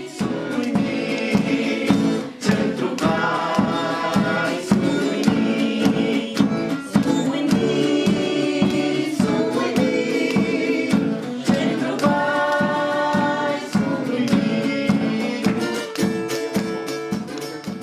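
A song: singing voices over a steady percussive beat.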